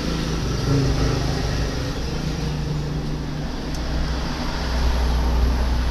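Steady low rumble with a hiss over it, swelling somewhat in the second half: background noise of a traffic-like kind.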